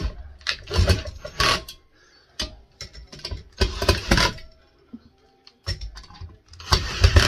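Cordless drill-driver tightening the screws that hold a ceiling fan's motor to its mounting bracket, running in three short bursts.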